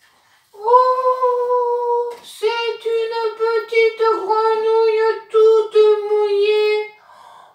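A woman's voice singing in a high register: one long held note, then a run of short, quick syllables on nearly the same pitch.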